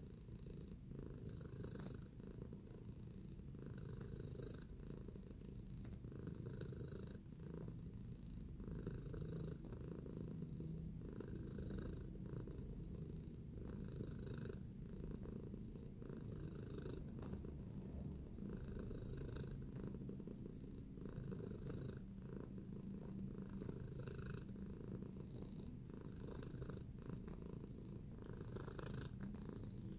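Domestic tabby cat purring steadily, the sound swelling and easing about every second or so.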